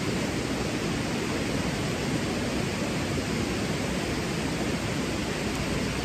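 Steady rush of a river flowing over stones.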